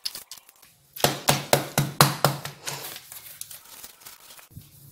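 Clear plastic bag crinkling and crackling as a wooden rolling pin presses cookie dough flat inside it: a quick run of sharp crackles about a second in, then softer, scattered rustling.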